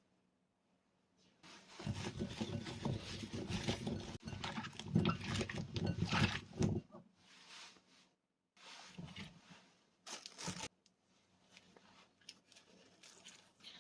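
Hands working cubed daikon radish during pickle prep, a crackly rustling and crunching: one long stretch for several seconds, then a few shorter bursts.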